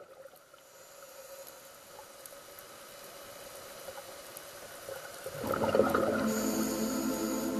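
Soundtrack of bubbling, trickling water fading in under a soft sustained tone, swelling into fuller music about five seconds in.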